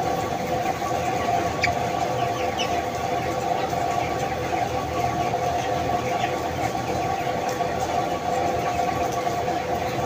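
Inside an enclosed broiler house, a steady mechanical drone with a few constant tones runs throughout. Scattered short peeps from the broiler flock sit over it.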